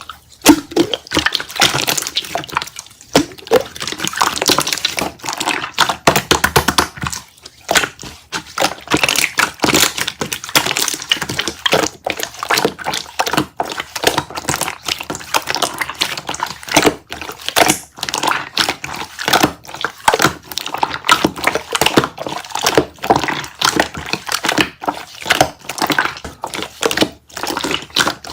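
Dense, irregular clicking and tapping, many small sharp sounds a second with a slightly wet, crackly edge, as of small objects or a soft material being handled close to the microphone.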